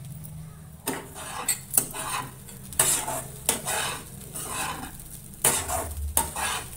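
A spatula stirring and scraping poha (flattened rice) around a frying pan: a run of quick scraping strokes with sharp knocks against the pan, starting about a second in.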